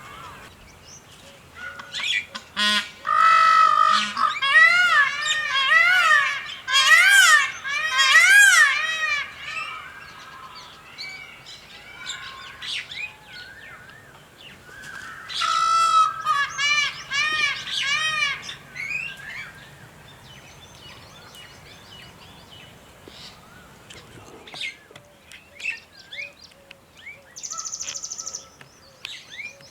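Birds calling outdoors in two loud bouts of quickly repeated calls, each call rising and then falling in pitch, followed by scattered fainter chirps.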